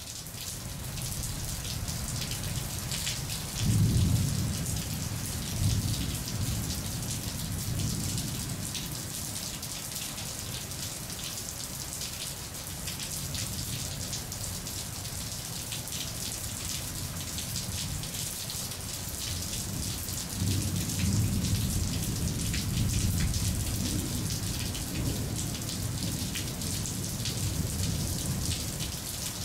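Steady rain with a dense patter of drops, joined by low rolls of thunder about four seconds in and again, longer, from about twenty seconds in.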